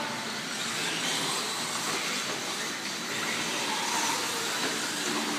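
Several electric radio-controlled short-course trucks racing on a dirt track: a steady whirring of motors, gears and tyres.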